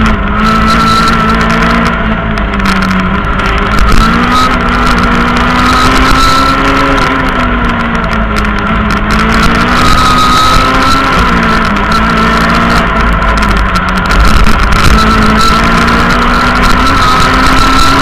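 Rally car engine heard from inside the cabin while driven hard on a stage. The revs climb and drop repeatedly through gear changes and lifts for corners, over constant road and tyre noise.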